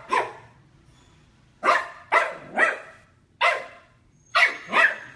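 A dog barking: about seven short, sharp barks, several coming in quick pairs.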